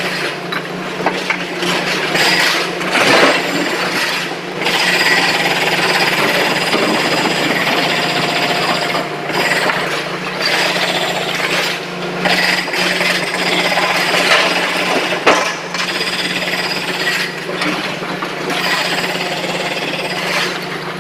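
SANY excavator running while loading rock into a tipper truck: a steady engine hum under continuous scraping and clattering of stone.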